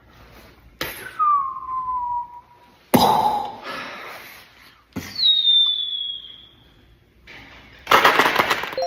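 Launch sound effect: a series of sudden whooshing blasts, each trailing into a falling whistle, with a noisy blast near the end.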